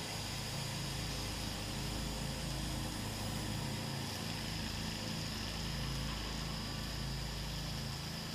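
Pressure washer engine running steadily, with the hiss of a wand spraying a low-pressure stream of softwash chemical, a downstream-injection setup.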